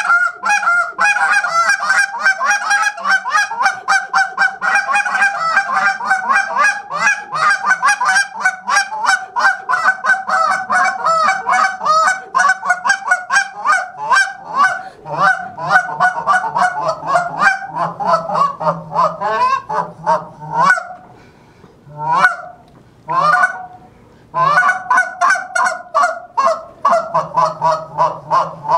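A hand-held goose call blown in a fast, rhythmic string of short honks. About two-thirds of the way through it slows to a few single honks with short pauses, then picks back up into a fast run near the end.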